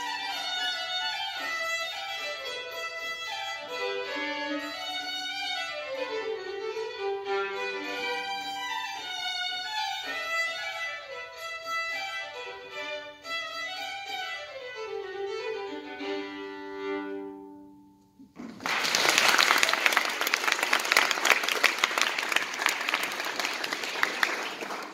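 Unaccompanied fiddle playing a traditional tune. Near the end the tune finishes and an audience applauds.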